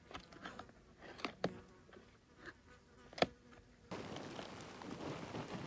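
Small clicks and crinkles of eating from a foil food pouch, over a faint insect buzz. About four seconds in, this cuts abruptly to an even, steady hiss.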